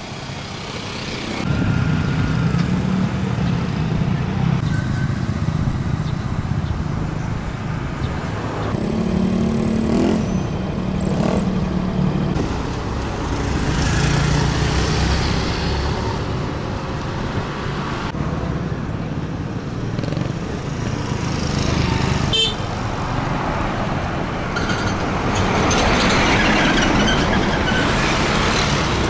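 Road traffic with motorcycles and motorised tricycles passing close by, their small engines swelling and fading as they go past, and a short horn toot about two-thirds of the way in.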